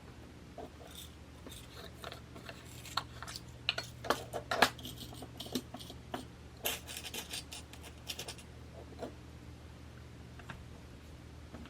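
Scattered small clicks, taps and light scrapes of beading supplies and tools being handled: beads, charms, chain and pliers. The clicks come thickest from about three to five seconds in and again around seven seconds, with a few sharper taps among them.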